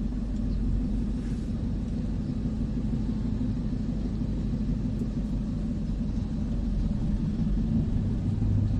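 Steady low engine rumble and road noise, heard from inside a moving vehicle. A deeper drone grows a little louder near the end.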